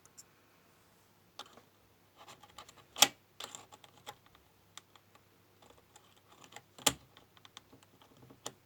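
Keycaps being pried off a keyboard with tweezers: scattered light plastic clicks and taps, with two sharp, louder snaps, one about three seconds in and one near seven seconds in, as caps come free of their switches.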